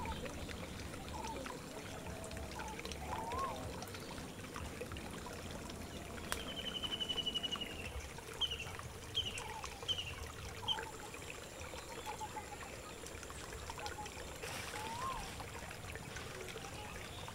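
Garden ambience of steady trickling water with birds calling over it: scattered short calls throughout, a rapid trill about six seconds in, then a few short high chirps.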